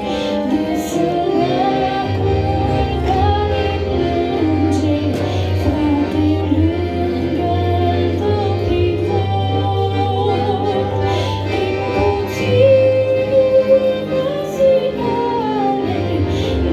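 A woman singing a Christian praise song solo into a handheld microphone, over a sustained instrumental accompaniment.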